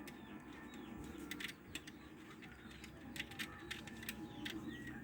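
Faint, scattered short clicks, irregularly spaced and about a dozen in all, over a low background.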